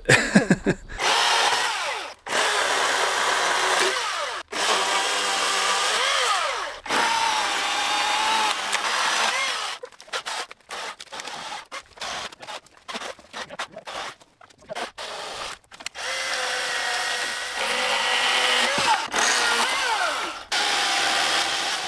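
Chainsaw cutting through fallen trees, running in long stretches with its pitch dipping and rising under load, broken into short on-and-off bursts in the middle.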